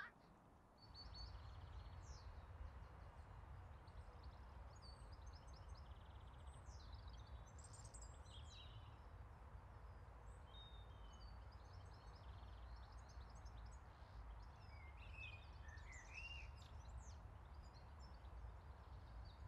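Faint birdsong starting about a second in: many small birds chirping and twittering on and off, with a few short rising whistles, over a low steady rumble.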